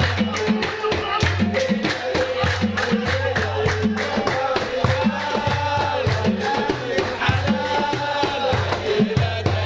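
Egyptian simsimiyya band music: a plucked simsimiyya lyre over a steady, repeating drum rhythm.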